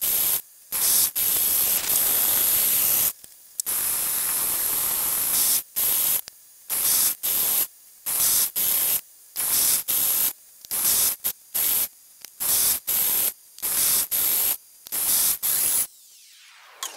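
Compressed-air blow gun hissing in blasts, switched on and off sharply: two long blasts of about two seconds each, then a rapid run of short puffs about twice a second. It is clearing chips out of the freshly cut internal thread between passes, with the lathe stopped.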